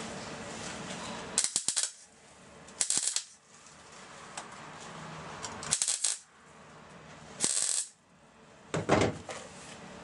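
MIG welder tack-welding a steel patch panel onto rusted car body steel: five short bursts of welding, each about half a second, a second or two apart.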